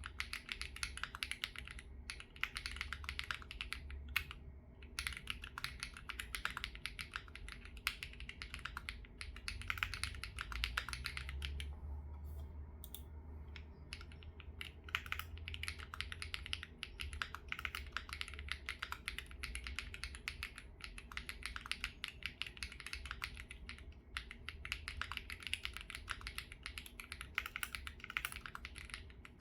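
Typing on a Wave75 mechanical keyboard fitted with Snow Cyan switches wiped of their factory lube and GMK ABS keycaps: a fast, steady run of keystrokes. The strokes thin out briefly about twelve seconds in.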